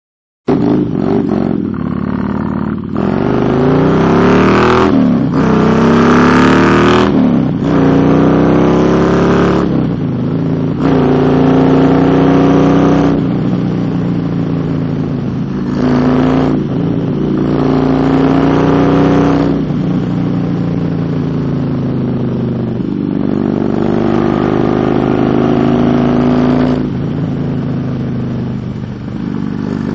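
Motorcycle engine pulling through the gears on the road, its pitch climbing with each run of throttle and dropping at each shift, several times over, along with the rush of riding noise.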